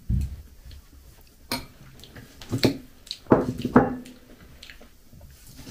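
Eating sounds: a spoon knocking and scraping in a bowl of milk porridge, with chewing, as a few separate short clicks and knocks.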